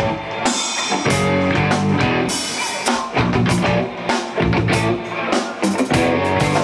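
Live rock band playing: electric guitar over bass guitar and a Tama drum kit, with steady drum hits.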